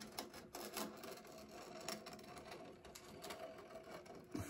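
Small hand chisel scraping thick old finish out of the carved molding of a rosewood piano case, a quick run of short, scratchy strokes.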